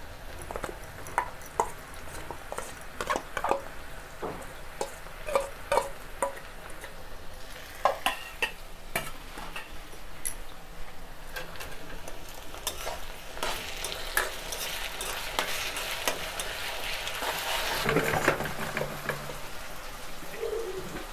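Onions and a wet masala paste frying in oil in a kadai, with metal utensils clinking and scraping against the pan and bowl as the paste goes in and is stirred. The sizzling grows louder in the second half.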